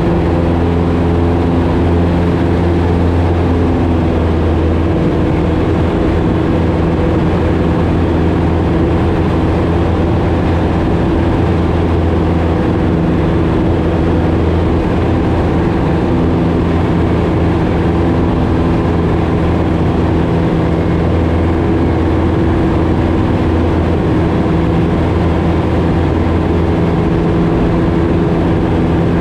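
Piper Super Cub's piston engine and propeller running steadily at high power during the takeoff run and climb-out, heard from inside the cockpit as a loud, even drone.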